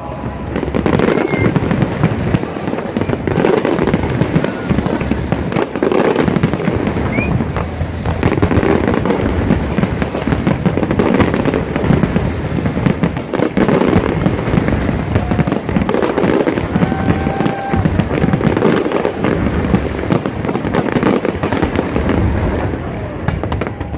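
Fireworks display: a dense, unbroken stream of shell bursts and crackling, bang after bang with no pause.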